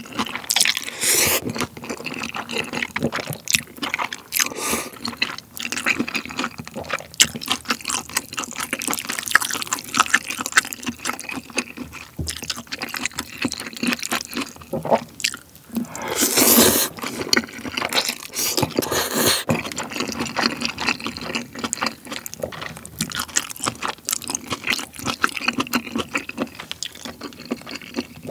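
Close-miked wet slurping and chewing of jjajangmyeon, thick wheat noodles in black bean sauce, with many small wet mouth clicks. Loud slurps come about a second in and again around sixteen seconds in.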